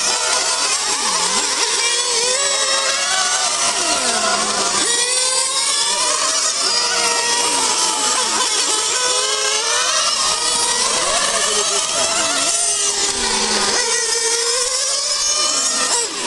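Several radio-controlled model race cars lapping together. Their small engines make a high whine that rises and falls in pitch over and over, several pitches overlapping at once.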